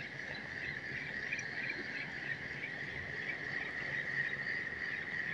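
A steady, high-pitched chorus of calling animals, a continuous shrill hum with small flickers on top.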